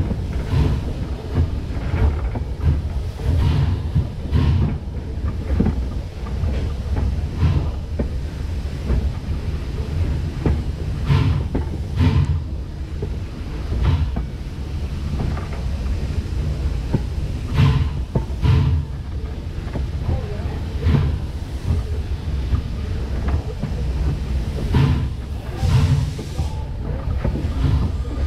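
Pennsylvania Railroad #331 steam locomotive running along the track, heard from its pilot: a steady low rumble of wheels and running gear, with irregular sharp clacks and knocks from the wheels on the rails.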